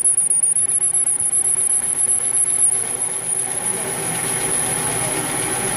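Metal lathe running with the cutting tool taking a slow facing cut across the end of the workpiece: a steady machine hum.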